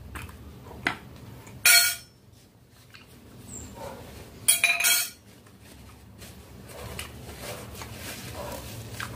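A metal fork scraping and clinking against a glass baking dish: two short, loud scrapes with a brief ring, just under 2 seconds in and again about 4.5 seconds in, after a small tick. Soft chewing follows.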